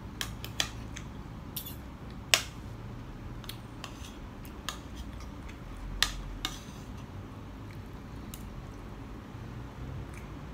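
Metal fork and spoon clinking and scraping on a ceramic plate: a scatter of sharp clinks, the loudest about two seconds in and again about six seconds in.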